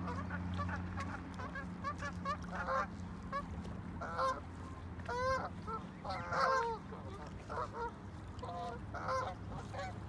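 Gulls calling: a steady chatter of short, repeated calls, with louder calls coming in bunches from about four seconds on.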